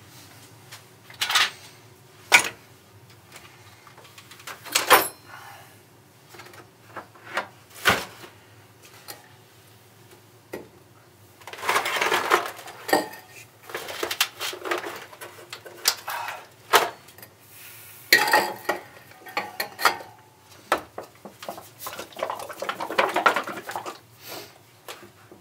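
Metal parts clinking and knocking as they are picked up and set down, with a few stretches of scraping or shuffling in between.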